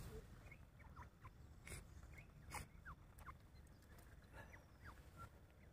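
Faint bird chirps, short scattered notes over a low background rumble, with two brief sharp noises about a second apart near the middle.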